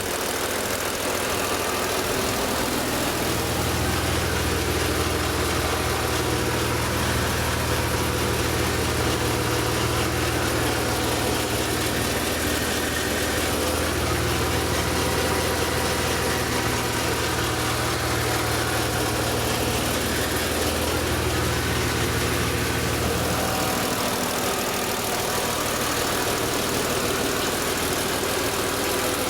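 BMW E36 M3's S50B32 straight-six idling steadily, with a strange noise at idle that the owner is trying to trace, possibly linked to the VANOS. A low hum comes in about two and a half seconds in and fades out about twenty-four seconds in.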